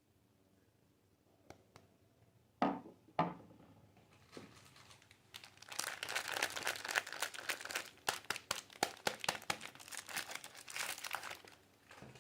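Wrapper of a soap bar being torn open and crinkled by hand: two sharp tearing sounds about three seconds in, then a long spell of dense crinkling.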